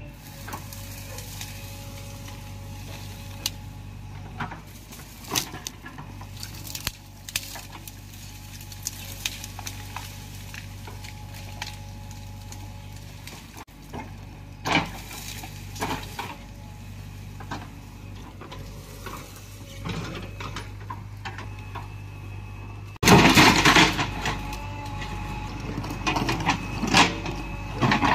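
JCB 3DX backhoe loader's diesel engine running steadily while its backhoe bucket scrapes and knocks against the ground, with scattered clanks. Near the end it grows louder, with dense crunching and clanking as the bucket works through rubble and broken concrete.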